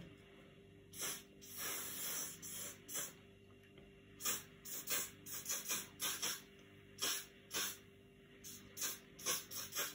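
Hand-held spray bottle spraying onto hair, in repeated quick pumps. It gives one longer hiss early in the second second, then a rapid series of short puffs, several a second.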